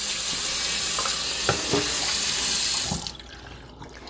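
Kitchen faucet running into a plastic bowl in a stainless steel sink as it is rinsed out, a steady splashing that stops when the tap is shut off about three seconds in. A couple of light knocks are heard while the water runs.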